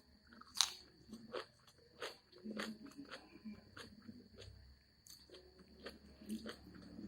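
A person chewing and biting food up close, with irregular crisp crunching and wet mouth clicks, a few a second.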